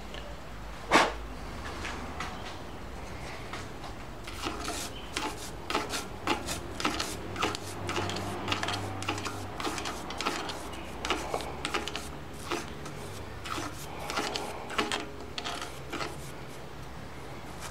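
A thin metal rod scraping and tapping inside a freshly bored cylinder casting, raking out the metal swarf: a long run of quick, irregular scrapes and clicks, with a single sharp knock about a second in.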